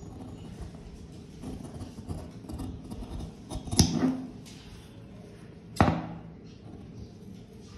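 Scissors cutting through a paper collar pattern, a run of small snips and scratches, with two sharp clicks of the blades near the middle, about two seconds apart.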